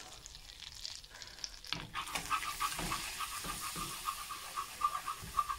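Butter and flour sizzling in a non-stick pan as a roux, with a whisk working through it from about two seconds in, in a quick, even rhythm of strokes. This is the roux being cooked for a white sauce.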